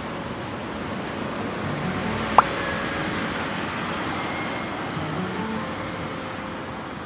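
City street ambience: a steady wash of traffic noise, with one sharp pop a little over two seconds in.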